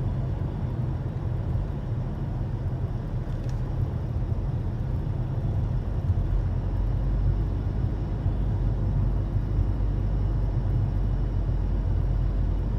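Steady road and engine noise inside a moving car's cabin: a constant low rumble from the tyres and engine.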